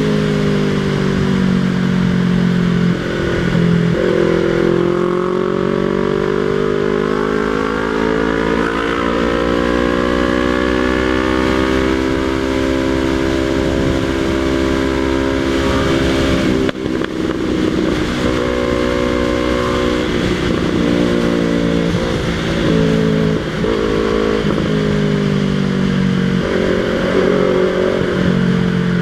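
Yamaha MT-03 engine running through a Jeskap aftermarket exhaust with the dB killer removed, under way. Its pitch climbs steadily for several seconds, drops sharply about halfway through, then rises and falls with several short dips.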